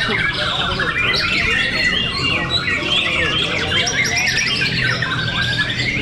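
Many caged white-rumped shamas (murai batu) singing against each other at once: a dense, unbroken chorus of rapid, overlapping whistled phrases and trills.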